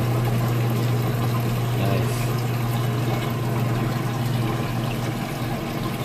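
Roper top-load washing machine running with its lid open, its failed lid switch bypassed: a steady motor hum with water rushing as the basket turns and the pump works.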